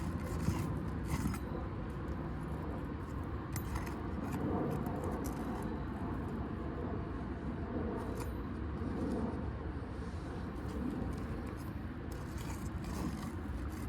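Scattered light metallic clicks and scrapes of a roof snake working under asphalt shingles to break the seals and pull nails, over a steady low rumble.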